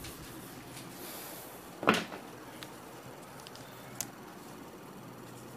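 Whiteboard duster wiping briefly across the board, then a single sharp knock about two seconds in, the loudest sound, and a small click about four seconds in.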